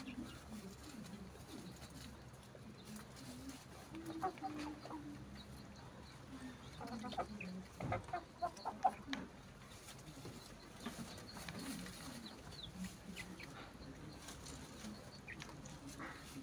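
Faint, intermittent clucking of chickens, in short scattered calls with a denser cluster about seven to nine seconds in, over soft scattered clicks and rustles.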